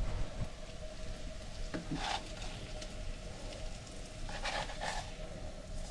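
Battered fish fillets sizzling steadily in hot olive oil in a nonstick frying pan, the oil now up to frying heat. A spatula scrapes and moves the fillets a couple of times, about two seconds in and again around the fifth second.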